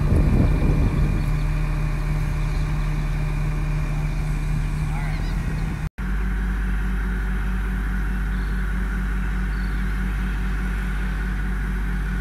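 A crane's engine running steadily under load as it lifts a lighting truss, a loud low drone. It breaks off for an instant about six seconds in, then a similar steady low engine hum carries on.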